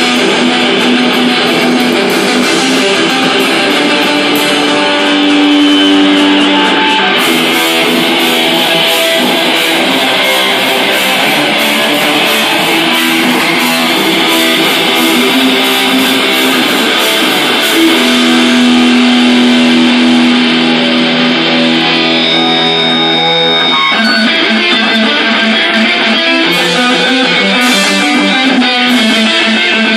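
Live rock band playing: electric guitar through an amp over a drum kit, with the cymbals busiest through the middle stretch.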